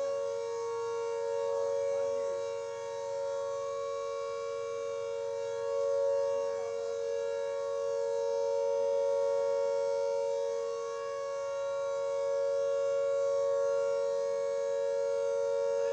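Air raid siren sounding a long, nearly steady tone, swelling and fading in loudness every few seconds.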